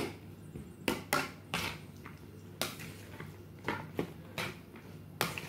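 A spoon stirring raw seasoned cow kidney, knocking and scraping against the dish in a string of irregular clinks, about eight or nine in all.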